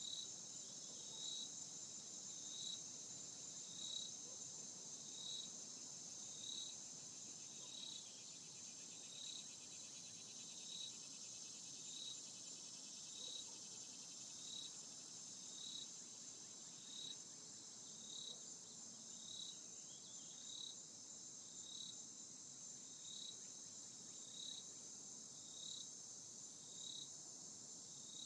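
Faint insect chorus: a steady high-pitched trill with a short chirp repeating evenly, about three chirps every four seconds.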